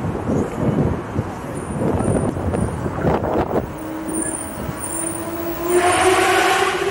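Road traffic passing on the bridge roadway below: a rumble of cars and trucks. From about halfway a droning tone from a passing vehicle sets in, rising slowly in pitch and loudest near the end.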